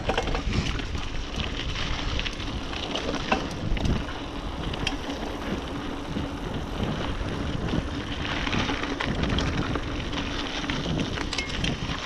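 Specialized Rockhopper hardtail mountain bike ridden on a dirt trail: tyres rolling over the ground with scattered clicks and knocks from the bike, and wind on the microphone.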